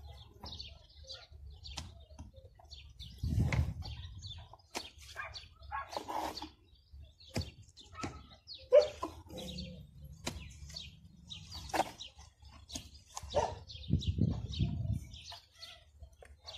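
Clicks and knocks of adobe mud bricks being handled and set on a stone wall, with small birds chirping over and over throughout.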